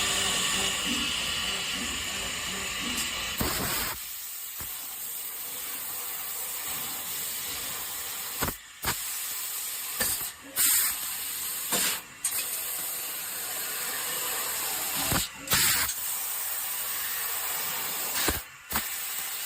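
CNC laser tube cutter cutting square steel tube: a steady hiss of cutting and assist gas, broken several times in the second half by short pauses, each with a sharp burst, as the head moves between cuts.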